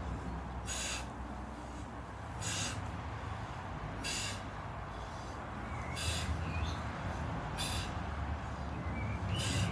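A person's short, forceful exhalations, six of them about every one and a half to two seconds, keeping time with side-plank leg raises, over a low steady rumble.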